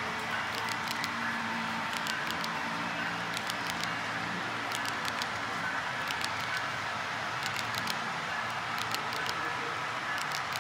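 Model railroad freight cars rolling past on the track: a steady rolling rumble of small wheels on rail, with clusters of sharp clicks about every second or two.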